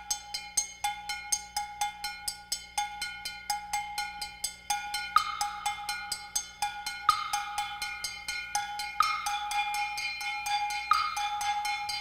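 Instrumental music with a quick, even percussion pattern of short knocking clicks, about four a second, over a held tone. A higher note enters about five seconds in and recurs every couple of seconds.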